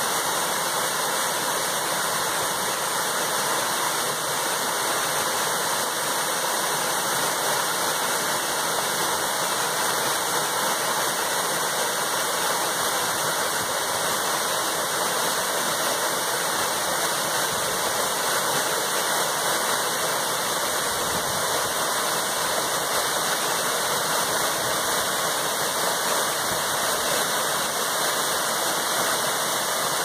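Waterfall pouring down a rock face and splashing into a pool below: a steady, even rush of falling water.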